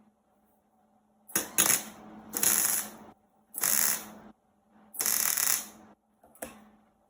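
Welder crackling in short bursts, about five runs of under a second each, as holes in a galvanized steel floor pan are welded shut, with a faint steady hum between them.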